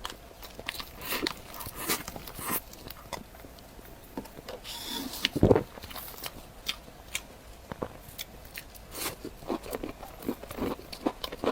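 Close-miked mukbang eating sounds: a person biting into and chewing chocolate desserts, with many small sticky clicks and mouth sounds. A single heavy thump about halfway through is the loudest sound.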